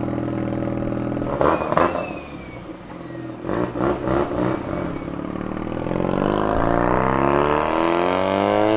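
Mazda FD RX-7's turbocharged 13B rotary engine idling, with a few knocks, then pulling away under load, its note rising steadily as the car accelerates.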